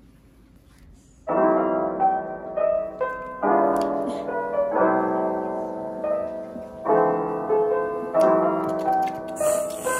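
Piano music that begins about a second in, after a quiet start, playing chords with a melody on top.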